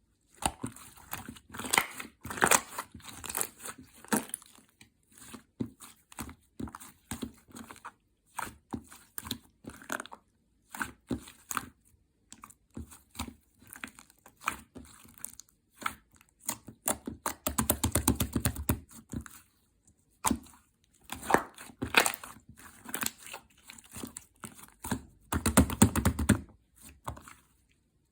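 Slime being handled by hand: squished, stretched and poked, giving irregular sticky clicks and pops. There are two denser, longer stretches of squishing, about two-thirds of the way in and again near the end.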